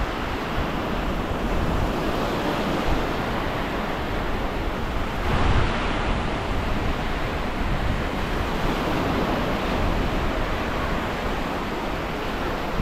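Wind buffeting the microphone over small waves washing onto a calm beach, a steady rush of noise with a louder surge about five and a half seconds in.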